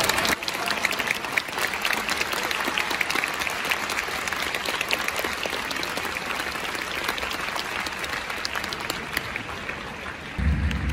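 Stadium crowd applauding, many hands clapping at once, easing a little toward the end. A low rumble comes in just before the end.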